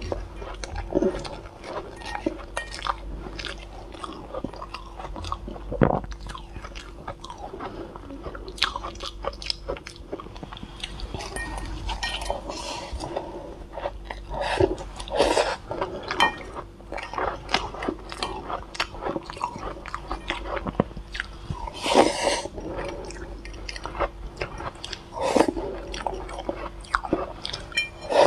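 Close-miked biting and chewing of soft, fluffy shaved ice dusted with matcha and milk powder: irregular crunches and crackles, with louder bites now and then.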